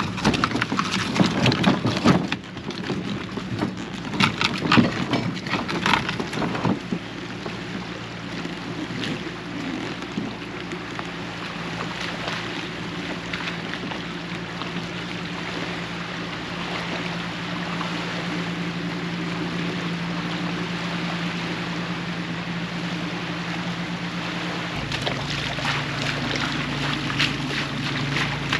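Wind on the microphone with a low steady hum. Irregular crunching, clattering and splashing fill the first seven seconds, as a loaded kayak cart is pulled through mud and shallow water.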